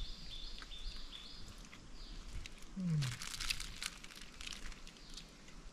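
A bird calling in short high notes on two pitches, repeated about three times a second for the first two seconds. About three seconds in there is a short low falling voice-like sound, followed by a run of crisp crinkling clicks.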